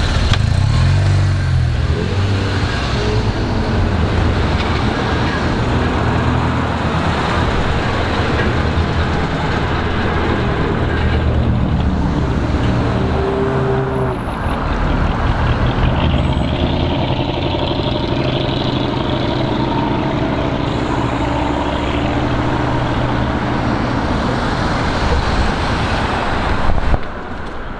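LiAZ-677M city bus with its ZIL V8 petrol engine running as it drives up and passes close by, a steady deep engine drone mixed with street traffic. The sound drops off sharply near the end.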